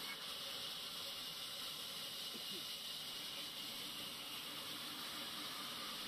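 Sawmill bandsaw running with a steady, even hiss as its blade saws a river red gum plank.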